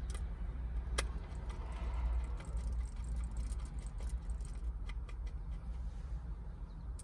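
Small metallic clicks and taps of screws and a hand screwdriver as screws go into the switch bezels, with one sharper click about a second in, over a steady low hum.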